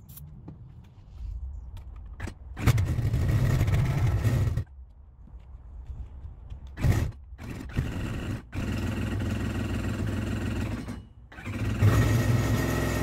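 Kawasaki STX-R 1200's two-stroke triple catching and dying over and over: it fires for about two seconds, cuts out, sputters briefly twice, runs a few seconds, dies again and picks up once more near the end. It is running only on starter fluid, with no fuel reaching the engine.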